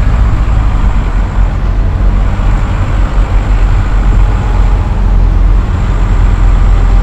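Diesel engine of a New Holland TM tractor running as it drives slowly past at close range, a steady loud low rumble, with other tractors' engines behind it.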